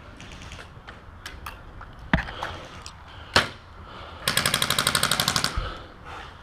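Airsoft rifle firing a rapid full-auto burst lasting about a second and a half, preceded by two sharp single cracks.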